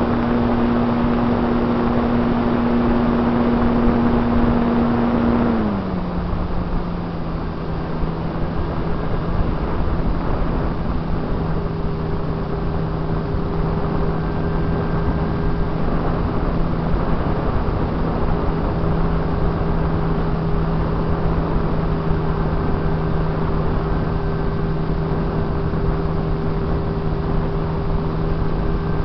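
Onboard sound of a radio-controlled plane in flight: its motor and propeller hum steadily over a rush of wind. About five and a half seconds in, the pitch drops as the throttle is eased back, then holds steady at the lower note.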